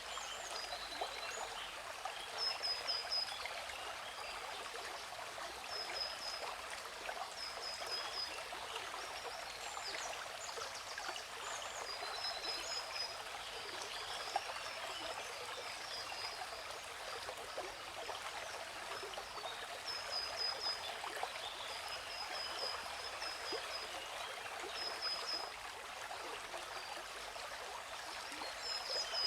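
Steady rush of a waterfall, an even hiss of falling water. Over it a bird repeats a short, high chirp of a few quick notes every few seconds.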